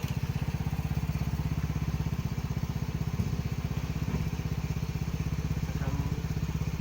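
Motorcycle engine fitted in a small car, idling steadily with an even, rapid exhaust pulse of about ten beats a second. A single sharp clack about three seconds in.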